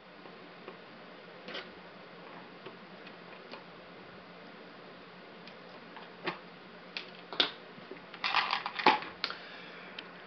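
Model-engine parts being handled: scattered light clicks and taps of metal on metal and on a clear plastic storage box, with a quick run of clattering about eight seconds in.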